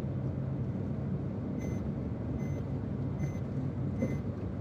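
Steady road and engine rumble inside a car's cabin at highway speed. About a second and a half in, the car's warning chime starts beeping, short beeps a little under a second apart, and keeps on.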